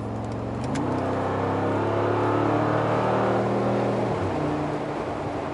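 Mercedes-AMG G63's twin-turbo V8 heard from inside the cabin, pulling at highway speed. The engine note steps up about a second in, climbs slowly, then drops back about four seconds in.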